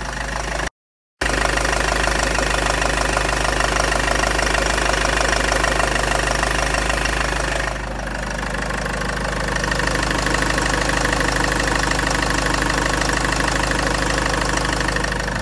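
Land Rover Freelander 2's 2.2-litre TD4 diesel engine idling steadily, heard close to the auxiliary drive belt and pulleys. A new belt and tensioner pulley are fitted, and it runs a lot quieter, with no rattly or squeaky noises from the belt and pulley. The sound cuts out briefly about a second in.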